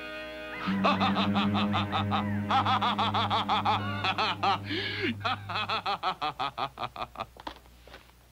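Cartoon villain's high cackling laugh, quick repeated ha-ha pulses that fade away toward the end, over a low held musical tone.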